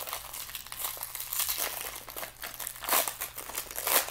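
Crinkly plastic blind-bag packaging being crumpled and torn open by hand: irregular crackling and rustling, with louder crinkles about a second and a half in, at three seconds and near the end.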